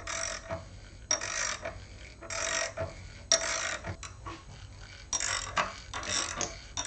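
Tap cutting threads into a steel part, driven by the hand-turned mill spindle in short strokes: a grating sound with each stroke, about one a second.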